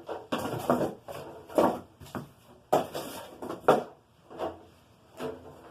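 Hard objects being handled and set down: a run of about eight sharp, separate knocks and clacks at irregular intervals.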